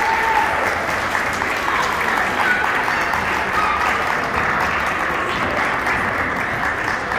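Audience applauding: many people clapping in a dense, steady patter that eases off slightly near the end.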